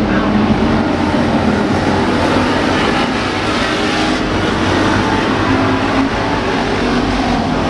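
A pack of street stock race cars' engines running at racing speed on a dirt oval, blending into one loud, steady drone with engine tones rising and falling as cars pass.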